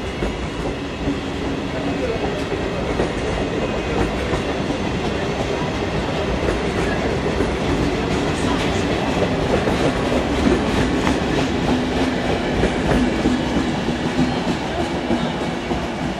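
Italian electric regional passenger train rolling slowly along a curved track, a continuous rumble of wheels on rail with scattered clicks as the wheels pass over rail joints, and a low steady hum underneath.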